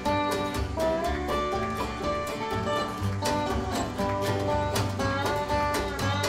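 Bluegrass band playing live, with fast banjo and guitar picking.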